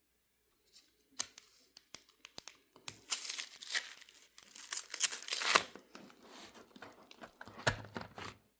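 Crinkling, rustling, tearing-like handling sounds of trading cards and their paper or plastic packaging. Sharp clicks come first, the rustling is heaviest in the middle, and there is a knock with a low thud near the end.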